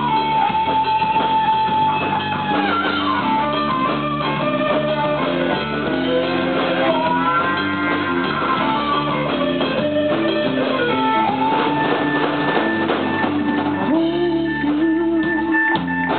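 Live band playing an instrumental passage: a fiddle plays long, sliding notes over guitar and a drum kit.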